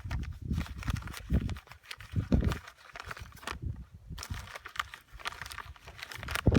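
Wind buffeting the microphone in irregular low rumbles, mixed with scattered clicks and rustling.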